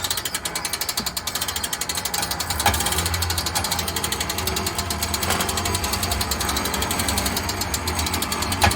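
A power tool running with a fast, even rattle over a low hum, with a few sharper knocks along the way.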